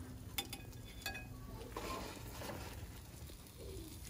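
Metal tongs clinking against a metal pan while grilled chicken pieces are lifted off a gas grill: two sharp, ringing clinks in the first second or so, over a steady low hum.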